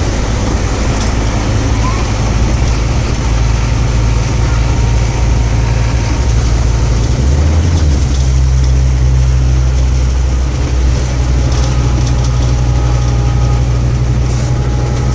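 Scania OmniCity single-deck bus's diesel engine and running gear heard from inside the passenger saloon while under way: a steady low engine drone that changes pitch about halfway through.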